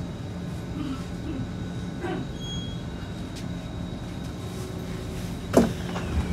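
Steady electrical hum of a stationary Kawasaki C151 metro train. About five and a half seconds in comes one sharp thump, then a faint tone falling in pitch.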